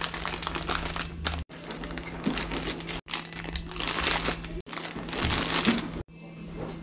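Plastic snack and biscuit packets crinkling as they are handled and packed into a basket. It comes in short stretches that cut off abruptly four times, about every second and a half, over a faint steady hum.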